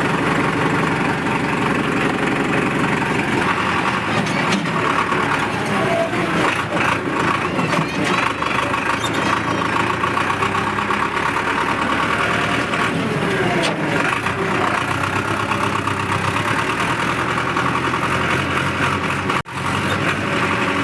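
Powertrac tractor's diesel engine running steadily under way, with a brief cut in the sound near the end.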